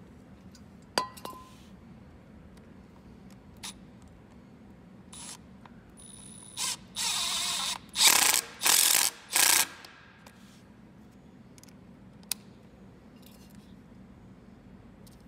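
Milwaukee Fuel cordless impact driver on a bolt of a rusted tapered steel bushing: a few sharp clicks, then a steady run of about a second, followed by three short, louder bursts about two thirds of the way through.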